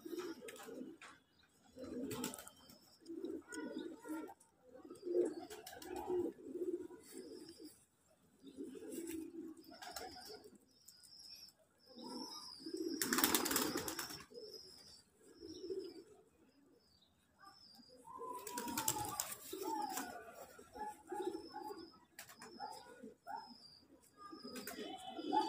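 Domestic pigeons cooing over and over in low, rounded coos, with short high chirps from a small bird between them. Two louder bursts of rustling noise, about halfway and again about three quarters through.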